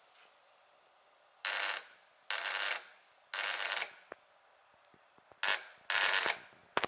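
1990 Suzuki VX800 motorcycle trying to start but not firing: five short, harsh mechanical bursts of about half a second each, with pauses between them. This is the strange noise it makes in place of starting.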